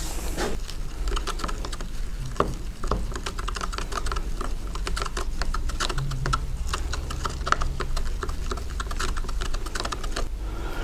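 Wooden stirring stick mixing resin in a plastic mixing cup, a fast, continuous run of light clicks and scrapes against the cup wall.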